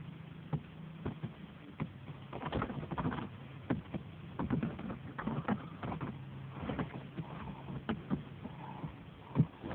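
Irregular rustling and light knocks from hands working at a small homemade bird trap to get a trapped bird out, over a steady low hum.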